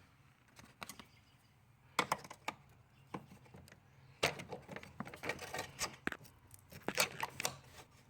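Scattered light clicks, taps and rustling from things being handled, with a few short clusters of crinkly noise.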